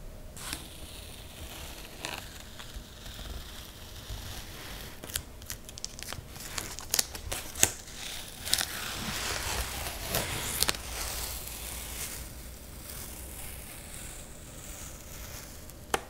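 Masking tape being peeled off the edges of a painted watercolor-paper sketchbook page. Small crackles and clicks build into a longer ripping peel in the middle, then ease off.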